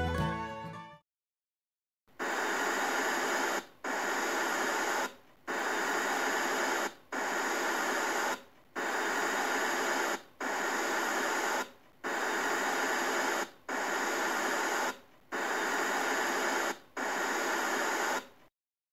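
Electronic static hiss, a white-noise glitch effect, in ten even bursts of about a second and a half each with short breaks between, starting about two seconds in.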